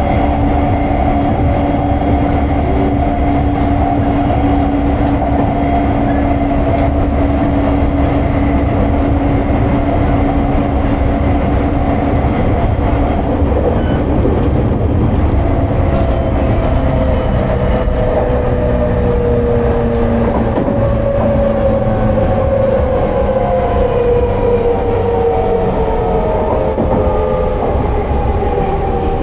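Running sound inside a JR 209 series 1000 subseries electric train's motor car, with its unrenewed early Mitsubishi GTO-VVVF traction equipment: a steady rumble of wheels on rail under a steady motor whine. From about halfway, the whine's several tones fall steadily in pitch as the train slows.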